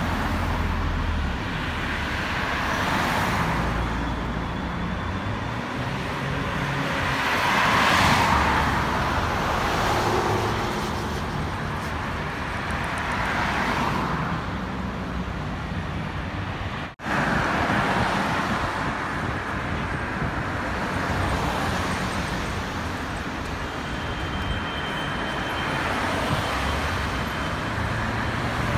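Road traffic on a city street: a steady hum of cars, swelling as vehicles pass by, with a brief drop-out a little past halfway.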